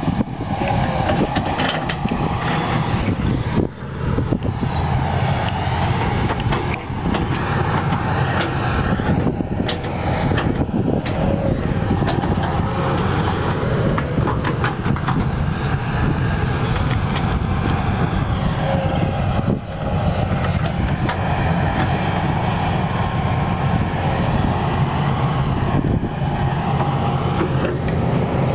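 Caterpillar 329E hydraulic excavator's diesel engine running steadily under load while it digs wet mud, with a few sharp knocks along the way.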